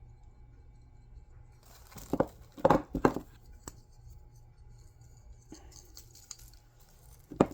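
Handling noises at a kitchen counter: a few loud crinkling and rustling bursts about two to three seconds in, and more near the end, over a low steady hum.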